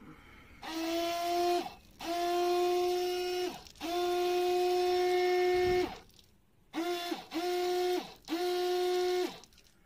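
Small 12-volt electric water pump whining as it is run straight off the car battery to test it, pushing water out through a hose. It is switched on six times in short runs of about a second or two; each run rises in pitch as the motor spins up and drops off as it stops.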